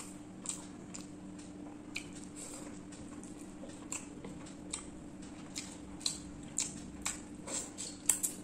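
Close-miked eating sounds: a person chewing prawn curry and rice, with irregular wet smacks and clicks of the mouth, the loudest pair a little before the end.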